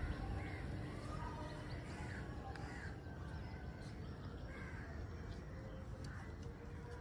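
Birds calling now and then, short separate calls, over a steady low background rumble of outdoor ambience.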